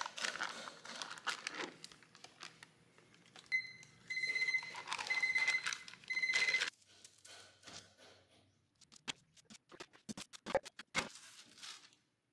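Foil wrapper crinkling and a spatula scraping blocks of cream cheese into a plastic mixing bowl, with three short electronic beeps in the middle. Later, sharp clicks of metal tongs on a wire cooling rack as baked cookies are lifted onto it.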